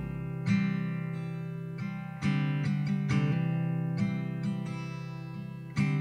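Background music: an acoustic guitar strumming chords in an instrumental passage between sung lines of a pop song.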